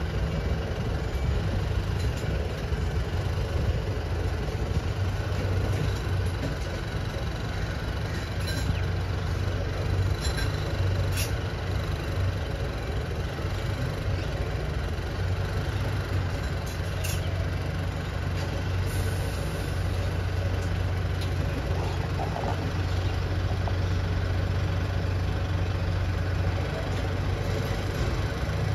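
Mercedes-Benz Arocs 2830 rubbish truck's diesel engine running steadily at low revs as the truck manoeuvres slowly, with a few short clicks and a brief hiss of air about two-thirds of the way through.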